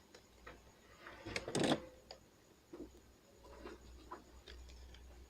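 Scattered small clicks and taps of a computer mouse's plastic parts and small tools being handled, with a louder cluster of clicks about one and a half seconds in.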